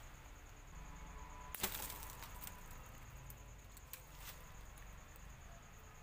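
Hands setting a spring-pole string snare on dry leaf litter: one sharp click about one and a half seconds in, then a few lighter clicks and rustles.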